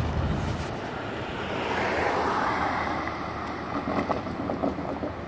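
Road traffic driving over the crossing: cars and a motorcycle passing, with tyre noise that swells and fades about two seconds in.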